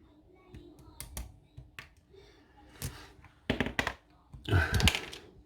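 Small scattered clicks of a lock pick and tension tool working the pins of a lock, then two louder bursts of tool handling near the end.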